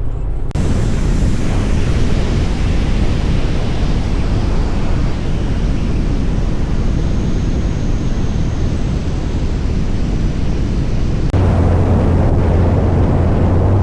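Wind rushing over a camera microphone held out of a moving car's sunroof at highway speed, a steady loud roar of air mixed with road noise. About eleven seconds in the sound shifts abruptly and a steady low hum joins it.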